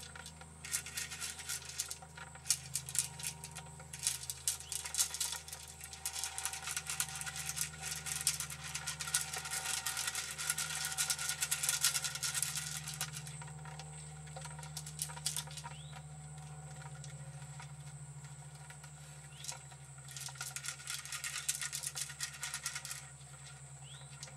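Deer feeding at a feeder: dense, irregular crunching and rattling of feed, in busy spells that come and go.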